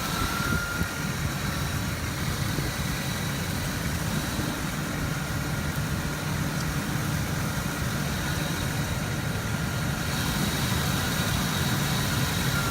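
A vehicle engine idling steadily, with a faint steady high whine over it.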